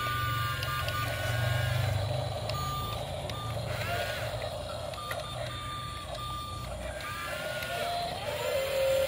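Short, repeated electronic beeps like a truck's reversing alarm, over a low steady hum.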